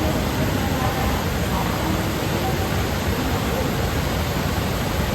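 Waterfall rushing: a steady, even roar of falling water at Fukiware Falls, a wide curtain-type fall in a rock gorge.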